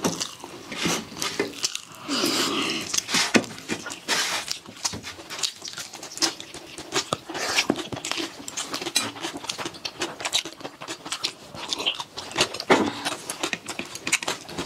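Close-up eating sounds of two people eating rice by hand: chewing with many irregular short wet clicks, and fingers mixing rice and dal on steel plates.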